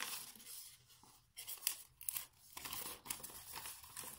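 Paper strips rustling and crinkling in several short spells as they are handled and folded and taped together.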